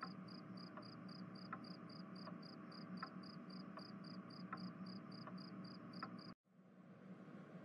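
Crickets chirping faintly and steadily, about four chirps a second, as a night-time background; the chirping cuts off suddenly about six seconds in.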